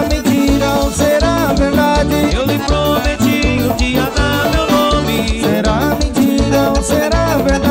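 Lambadão dance music played live by a band: a fast, steady beat under a melody with sliding notes.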